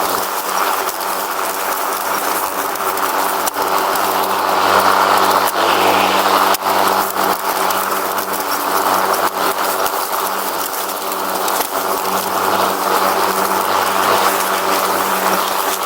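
Riding lawn mower engine running steadily while the mower is under way, with a few sharp knocks.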